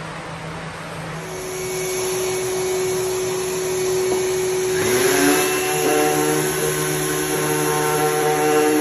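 An electric motor on a workshop machine running steadily, getting louder about a second in, with its hum changing to a richer, higher set of tones around five seconds in.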